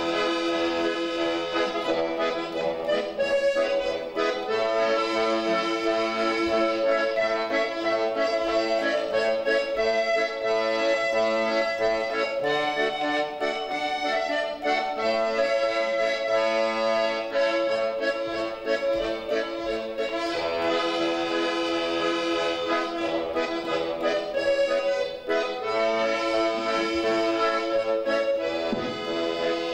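Accordion playing an instrumental tune, a melody over held chords, continuing without a pause.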